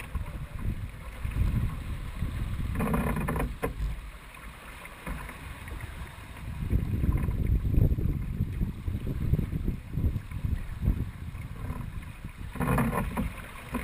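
Wind buffeting the microphone and water rushing past the hull of a Dufour 45e racing yacht under sail, as a gusty low rumble. There are two short louder bursts, about three seconds in and near the end.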